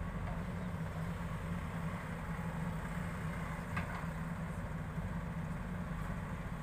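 Diesel engines of tractors and a JCB backhoe loader running steadily, a low even drone.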